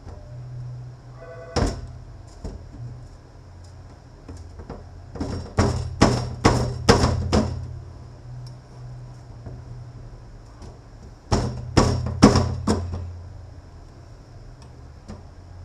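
Sharp metal-on-metal strikes with a short ring, like a hammer on steel parts of a transfer case: one blow about a second and a half in, a quick run of about six around the middle, and four more near the end.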